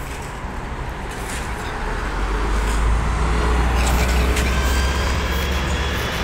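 A BKM 321 trolleybus pulls away from the stop and drives off. A low rumble swells about two seconds in, with a faint high electric whine above it.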